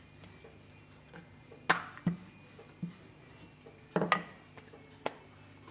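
A few scattered knocks and taps of kitchen handling: a wooden rolling pin and utensils knocked against an iron tawa and the stovetop as a rolled paratha is handled. The loudest knock comes a bit under two seconds in, with a pair around four seconds.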